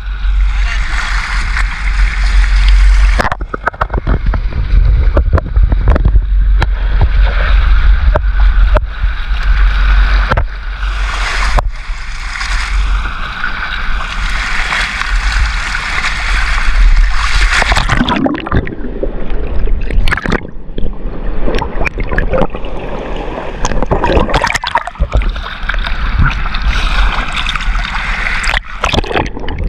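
Sea water splashing and gurgling against the side of a small boat in choppy water, with a heavy low rumble underneath that eases a little past halfway.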